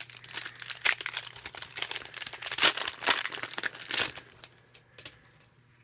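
Crinkling of a trading-card pack wrapper being opened and handled, dense crackles for about four seconds, then a couple of light clicks before it goes quiet.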